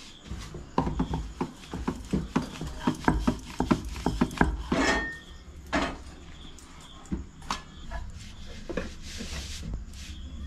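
Rolling pin knocking and clacking on a round rolling board as roti dough is rolled out: a quick run of sharp knocks, about four a second, then a few scattered knocks and rustles.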